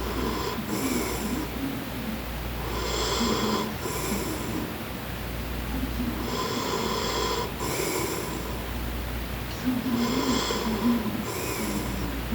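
A man snoring in a steady rhythm, one breath roughly every three and a half seconds. Each breath is a rattling snore followed by a short airy hiss.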